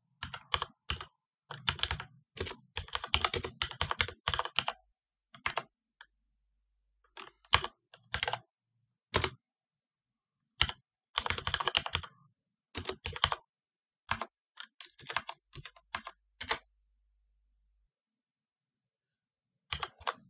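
Computer keyboard typing: quick runs of keystrokes broken by short pauses, with a longer pause near the end.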